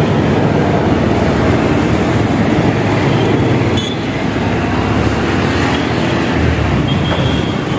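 Steady rumble of a moving vehicle, with a slight drop in level about halfway through.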